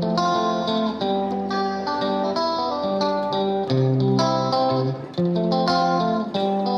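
Instrumental background music with plucked string notes and chords.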